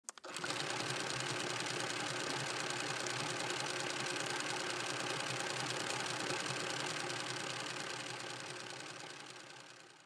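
A small machine running with a fast, even mechanical clatter, fading out over the last two seconds.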